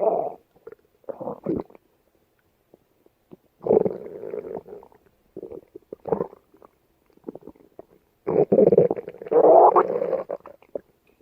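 A woman's stomach growling and gurgling in irregular bursts with short silences between them. The longest and loudest rumble comes from about eight to ten and a half seconds in.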